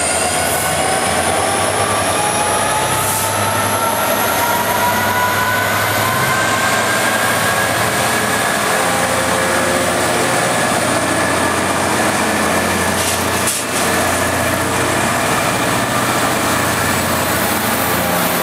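Class 66 diesel-electric freight locomotive passing close by at low speed. Its EMD two-stroke diesel engine runs with a steady low drone under a whine that rises steadily in pitch as the locomotive gathers speed.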